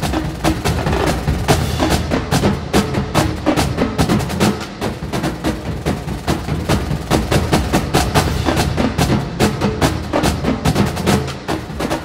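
Soundtrack music driven by fast, busy percussion over a steady low bass.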